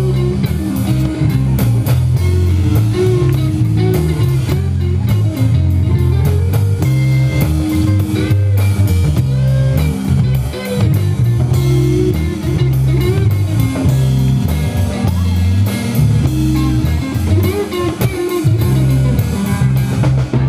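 Live rock band playing an instrumental passage: electric guitar playing bent notes over a bass guitar line and drum kit, heard loud and close from the stage beside the drums.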